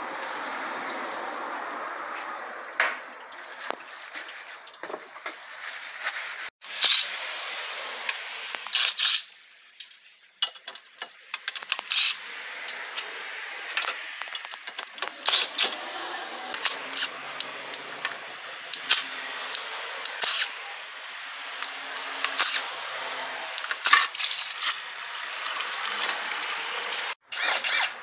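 Cordless drill undoing an automatic transmission's sump-pan bolts, running in a dozen or so short loud bursts over a steady background hiss.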